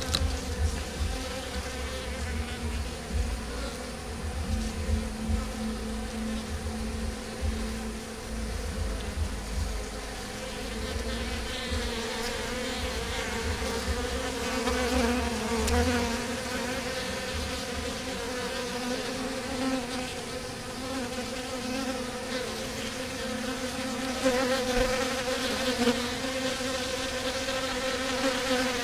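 Honeybees buzzing at a hive entrance: a steady, wavering hum of many wingbeats from a crowd of bees coming and going. A low rumble runs under it for the first half.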